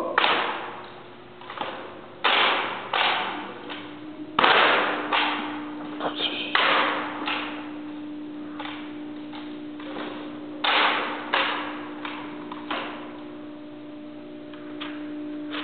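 Ceremonial drill rifles being slapped and snapped between hands in a rifle drill routine: a series of sharp slaps and knocks echoing in a large hall, thinning out near the end. A faint steady hum comes in about four seconds in.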